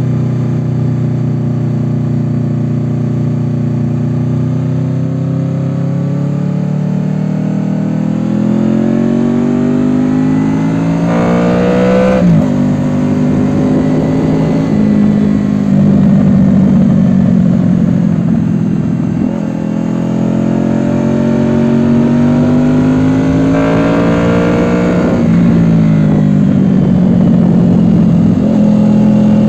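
Honda VFR800X Crossrunner's V4 engine pulling under throttle as the bike rides on. Its pitch climbs slowly, then drops sharply twice at gear changes.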